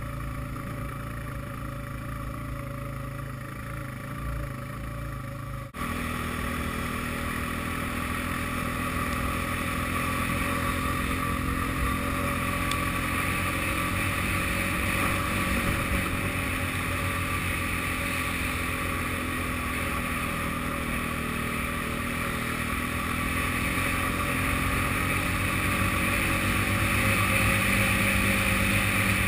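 Quad bike (ATV) engine running steadily under way, with a rushing noise over it. About six seconds in the sound changes abruptly to a louder, brighter mix, which swells a little near the end.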